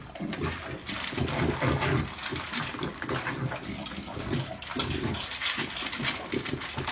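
A dog eating dry kibble from a metal bowl: rapid, irregular crunching and clattering of the food.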